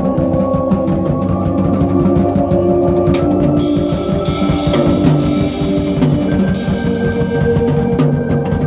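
Live instrumental jazz-rock band playing loud: a busy drum kit with bass drum and snare under held chords and a low bass line, and cymbals washing in about three seconds in.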